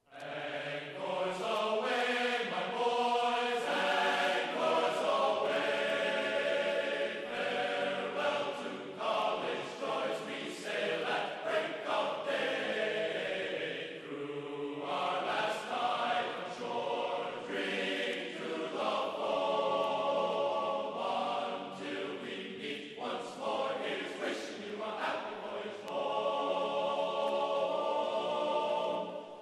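Background music of a choir chanting in long, held notes.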